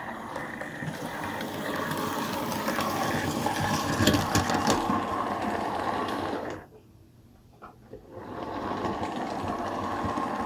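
Hornby OO gauge model steam locomotive (Princess Coronation class Pacific) running on its track, a steady whir of its electric motor and gears with light clicks. It is a fairly smooth, not grindy run for a model sold as a noisy runner. The sound drops away for about a second some seven seconds in, then builds again as the locomotive comes back.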